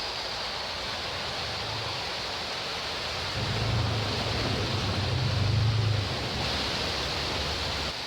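Steady hiss of heavy rain and running floodwater. A low bus-engine drone swells under it from about three and a half to six seconds in.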